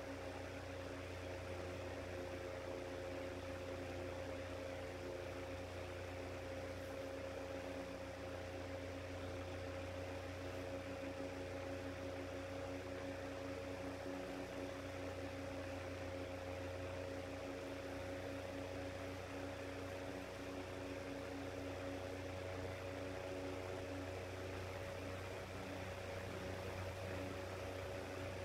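Shinic 9-inch electric fan's motor humming steadily on a cold start, slow to come up to speed; the owner puts the long start-up down to the motor lacking a start capacitor.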